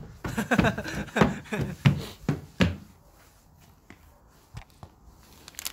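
A person laughing in a run of short bursts that dies away after a couple of seconds, followed by a few faint taps and handling noises.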